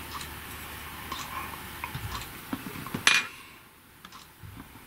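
Small metal hand tools tapping and clicking against a keyboard circuit board during capacitor replacement, with one sharp metallic clink about three seconds in.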